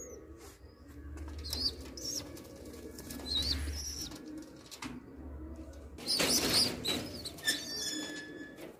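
Domestic pigeons cooing low in a wire cage, with short high chirps over the top and a brief rush of flapping wings about six seconds in.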